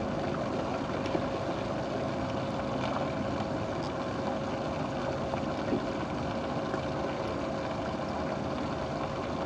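Electric trolling motor running with a steady hum, over a haze of wind and water noise.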